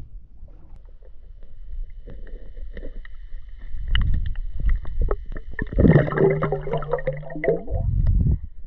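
Water sloshing and splashing around someone floating in a life jacket, in heavier surges about four and eight seconds in. A thin steady high whine runs underneath, and a low hum joins for a couple of seconds near the end.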